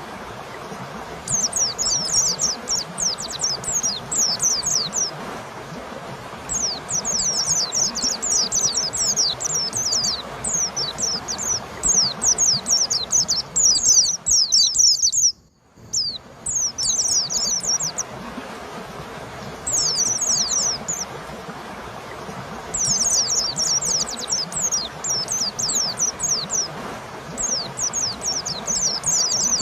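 White-eye (pleci) song: bursts of a few seconds of rapid, high, steeply falling notes with short pauses between, over a steady background hiss. The sound cuts out briefly about halfway through.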